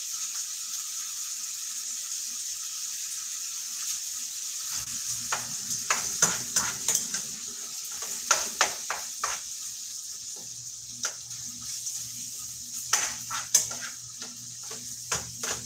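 Ground beef sizzling as it browns in a frying pan. From about five seconds in, a utensil scrapes and clacks against the pan as the meat is stirred, over a faint low hum.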